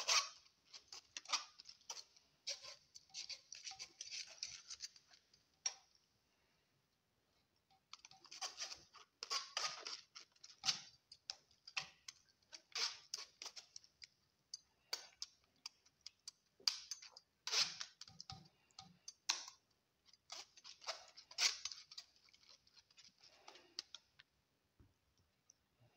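Perforated metal skimmer spoon scraping and tapping on a fine wire-mesh strainer, pressing boiled grape pulp through to squeeze out the juice. Irregular runs of scratchy scrapes and clicks, with a pause about six seconds in.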